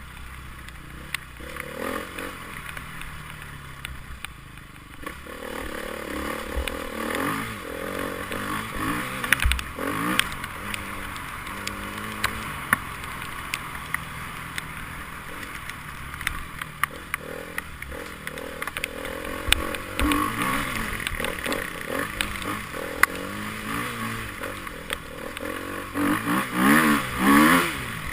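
Enduro motorcycle engines revving up and down, with scattered sharp knocks and clatter; the revving is loudest near the end.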